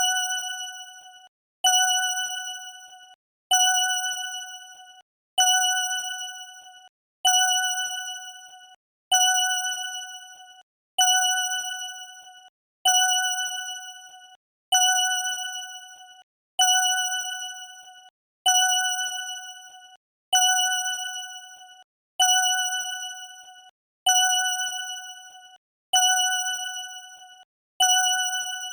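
Correct-answer ding sound effect: a single bright, pitched ding with a ringing decay, repeated about every 1.8 seconds.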